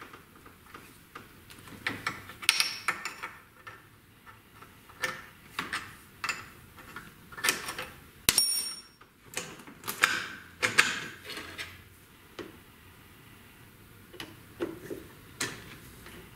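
Scattered metal clicks, knocks and clinks at irregular intervals from handling a mini metal lathe, its handwheels, tool post and chuck, and the tools around it.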